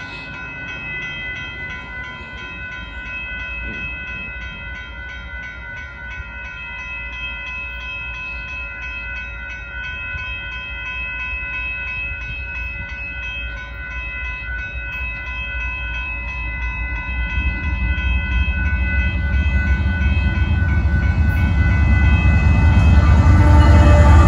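Railroad crossing warning bell ringing steadily while the signals flash and the gates are down. From about two-thirds of the way in, the low rumble of approaching Union Pacific diesel locomotives grows louder and is loudest at the end as they reach the crossing.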